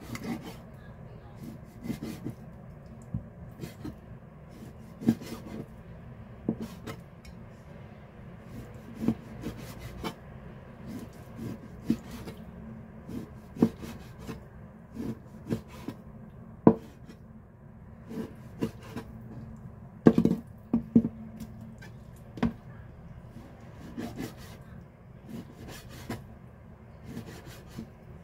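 Chinese cleaver slicing raw pork shoulder on a cutting board, the blade knocking on the board at irregular intervals, roughly once a second, over a steady low hum.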